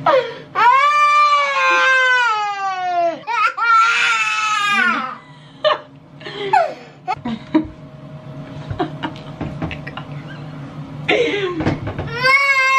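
A toddler crying while having his teeth brushed: a long wail falling in pitch about a second in, a second high cry right after, quieter fussing, then wavering crying again near the end, mixed with a woman's laughter.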